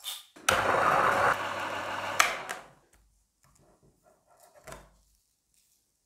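Niche Zero conical-burr coffee grinder grinding beans at its coarse setting of 50: a steady motor hum with the crunch of the burrs for just under two seconds, stopping with a click. A soft knock follows near the middle.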